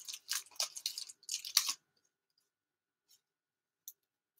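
Gloved hands handling trading cards in plastic sleeves and rigid toploaders: a quick run of crinkly, clicking plastic noises for under two seconds, then it falls almost silent apart from a faint tick or two.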